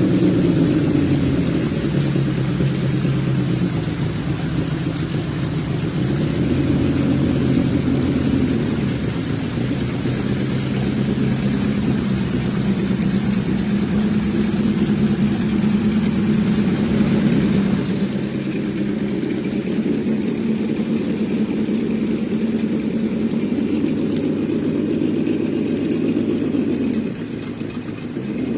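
RC crawler's ESS-Dual engine sound module playing a simulated engine through its speaker, the note rising and falling in pitch as the throttle changes, with a steady high whine over it. The engine note drops back about two-thirds of the way through and dips briefly near the end.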